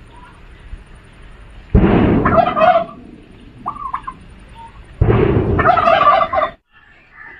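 A bird calling loudly twice, each call about a second long and about three seconds apart, with a faint short chirp between them.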